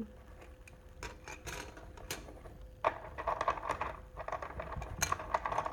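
Colored pencil scribbling rapidly back and forth on paper, shading in a coloring sheet. It is faint at first and becomes a busier scratching from about three seconds in.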